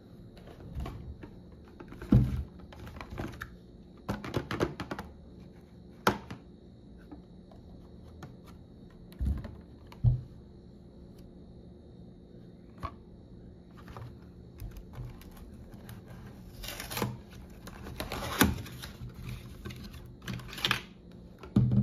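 A cardboard hair-dye box being handled and opened on a tabletop: irregular taps, knocks and cardboard rustles, with a few louder thumps as it is set down or pressed against the table.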